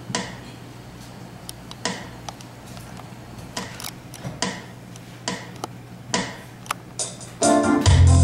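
Instrumental accompaniment starting up: scattered short taps and notes over a steady low hum, then keyboard and bass guitar come in loudly near the end as the intro to a song.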